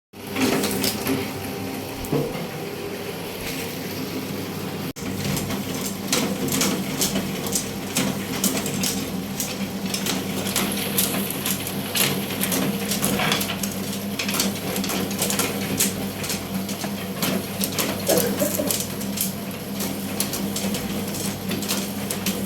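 Bamboo satay-skewer making machine running: a steady motor hum with rapid, irregular clicking and clattering.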